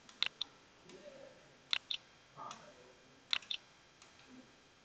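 Computer mouse clicking three times. Each click is a quick double tick, and the clicks come about a second and a half apart.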